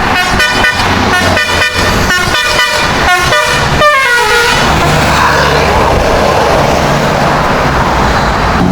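Indonesian bus 'telolet' musical air horn playing a quick tune of short notes, ending with a falling glide about four seconds in. After it, the bus's engine runs with a steady low rumble.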